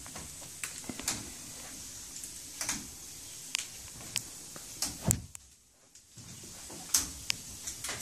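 Amazon parrot chewing and snapping at leafy branches: irregular dry clicks and crackles, with one louder snap about five seconds in.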